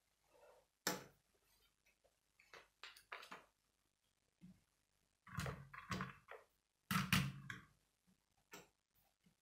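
Lego plastic pieces clicking and knocking as a Lego helicopter model and its parts are handled and set down on a wooden table. There are a few light clicks at first, then two louder bursts of knocking about five and seven seconds in.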